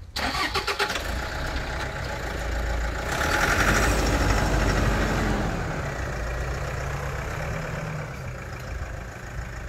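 Toyota Land Cruiser Prado SUV engine idling, its pitch rising briefly about four to five seconds in and then settling back.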